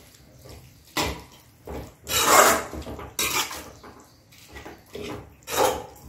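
Steel spoon scraping and knocking against a metal kadai as a thick potato and tomato gravy is stirred, in a few separate strokes, the loudest about two seconds in.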